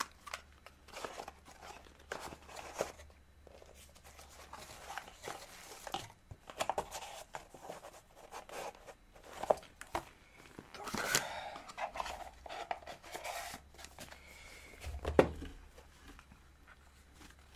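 Headphone packaging being handled: plastic and cardboard rustling and tearing in short scrapes and clicks as the ear tips and cable are taken out, with sharper knocks about nine seconds in and again around fifteen seconds.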